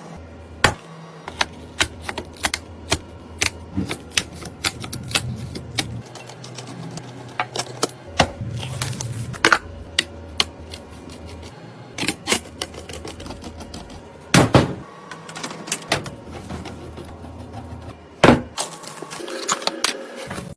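Irregular clicks, taps and knocks of hard computer parts being handled and fitted together during a PC build, with louder knocks about fourteen and eighteen seconds in.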